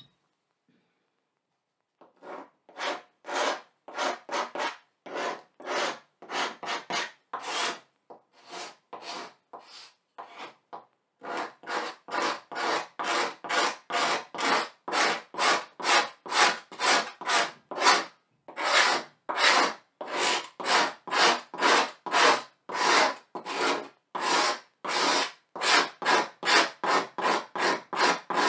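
Quick scrubbing strokes across a stretched canvas on an easel as paint is worked on, about two to three strokes a second, with a short pause about ten seconds in.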